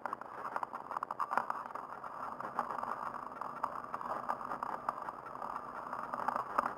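A handbike rolling along an asphalt road, heard from a camera mounted on it: a steady rushing noise with many small clicks and rattles from the bike as it is cranked along.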